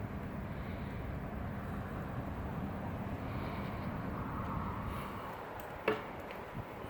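Snowstorm wind blowing steadily, a low even noise, with a single sharp click about six seconds in.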